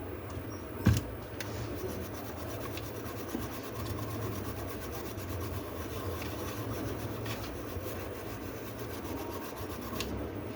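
A brush scrubbing a laptop motherboard in quick, steady strokes, cleaning off water-damage residue. A single sharp knock about a second in.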